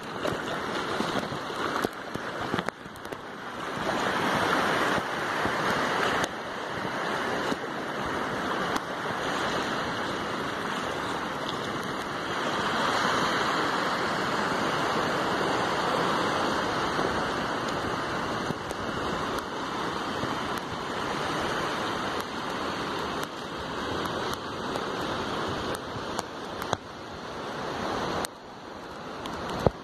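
Small waves washing in over the shallow sand at the shoreline, a steady rushing that swells and eases.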